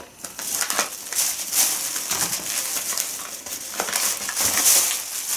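Plastic packaging rustling and crinkling as it is rummaged through and handled, with small crackles and clicks.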